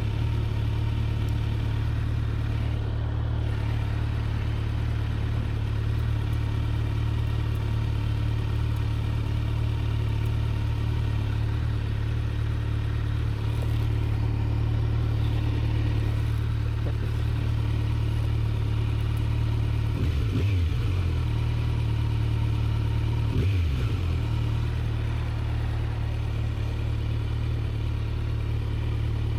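Kawasaki Z900's stock inline-four engine running steadily, with its pitch briefly dipping and rising again twice, about twenty and twenty-three seconds in.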